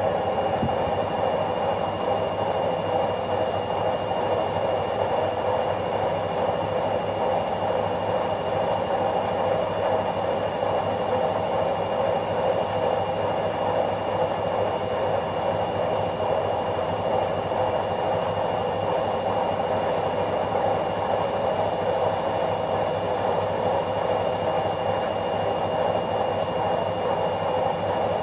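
Washing machine running with a steady, even drone and a faint steady high whine above it.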